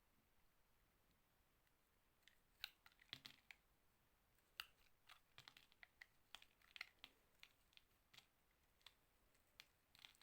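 A knife cutting slowly into a bar of soap: a run of crisp, irregular clicks and crackles that starts about two seconds in.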